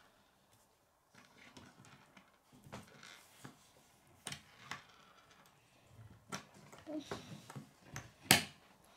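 Plastic K'nex pieces being handled and clicked together: scattered small clicks and soft rustling, with the sharpest snap near the end.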